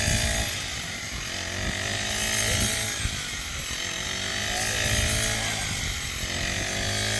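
A small engine running steadily, its pitch swelling and dropping about every two and a half seconds as the load comes and goes.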